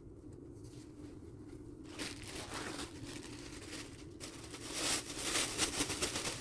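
Hands rustling and crinkling through paper bedding and cardboard in a mouse tank. The rustling starts about two seconds in and grows louder near the end.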